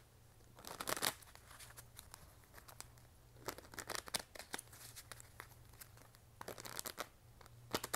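Tarot cards being shuffled and handled: several short bursts of papery riffling and snapping, about a second in, around four seconds, and again near the end.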